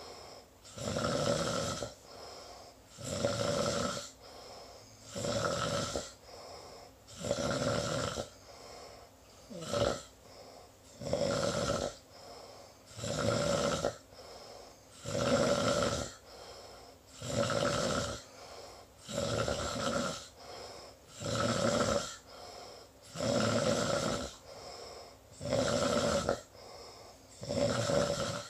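A sleeping person snoring in a steady rhythm: a loud snore about every two seconds, with a softer breath between each.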